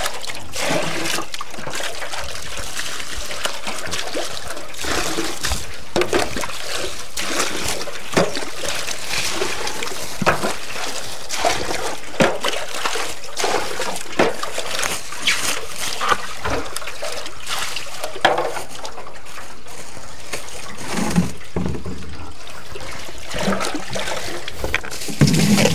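Water trickling and splashing, with short splashes every second or two over a steady running sound.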